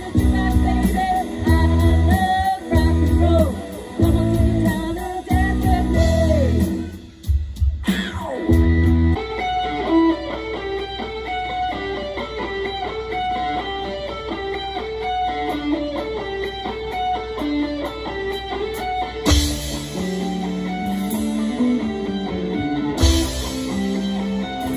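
Live rock band playing with electric guitars and drum kit: stop-start chord hits for the first several seconds, then a steady guitar riff from about nine seconds in, with cymbal crashes twice near the end.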